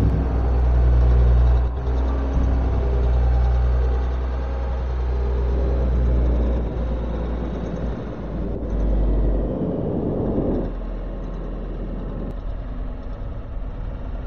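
Steady, heavy low rumble of a tunnel boring machine breaking through into a shaft, its cutterhead grinding through the concrete wall, swelling briefly about two-thirds of the way in.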